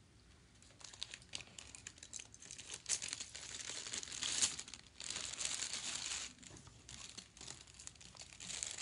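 Clear plastic jewelry packaging crinkling as it is handled and pulled open, a dense crackle that starts about a second in and swells and fades, with louder stretches around the middle.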